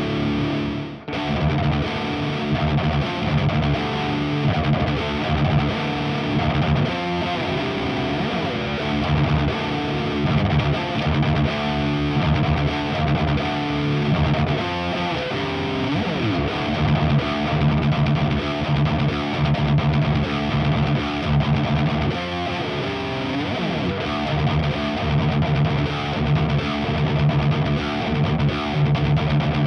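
High-gain distorted electric guitar playing riffs: a Jackson JS32 DKA Dinky with EMG 81/85 active pickups through a Diezel VH4 head and a Marshall Mode Four 4x12 cab with Celestion G12K-100 speakers. The playing breaks off briefly about a second in, and a few sliding notes run through it.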